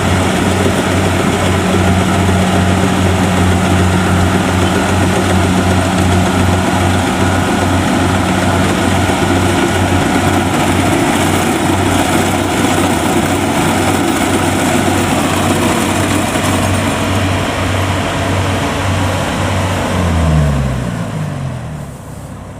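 Kubota DC70 combine harvester's diesel engine running steadily at working revs, with a fast low pulsing throb. About twenty seconds in, the revs fall away and the sound drops off.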